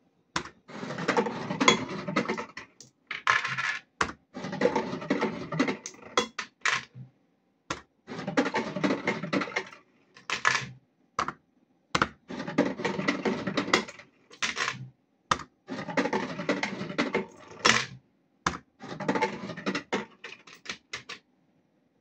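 Coins paying out of a Cops 'n Robbers Safe Cracker fruit machine after Collect is pressed, clattering down in runs of one to two seconds with short pauses and single clinks between them.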